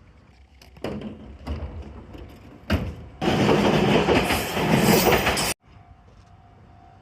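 Abukuma Express train noise: a few short rushes of sound, then a loud rushing noise for about two seconds that cuts off suddenly, followed by a faint steady tone.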